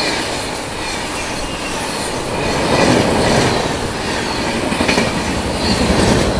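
Kalka Shatabdi Express coaches running past at speed on the adjacent track: a steady rush and rumble of wheels on rail with some clickety-clack, swelling about three seconds in and again near the end.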